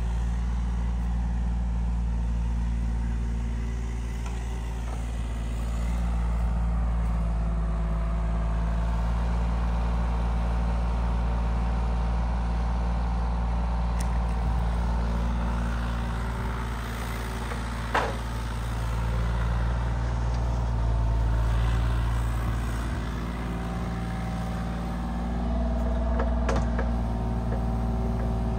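Compact excavator's diesel engine running steadily, its note swelling and easing a few times as the machine works. A single sharp knock about two thirds of the way through.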